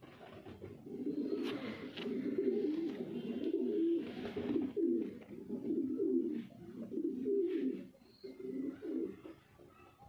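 Racing pigeon cooing: a run of low, warbling coos that starts about a second in and fades out near the end.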